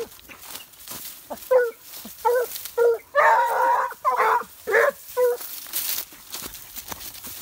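Leashed dogs barking and yelping in a quick run of short, high calls, about seven of them between one and a half and five and a half seconds in, with one longer, rougher bark near the middle.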